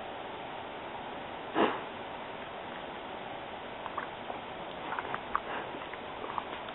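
A short sniff about a second and a half in, over steady low hiss, then a few faint clicks and taps from handling the dip can.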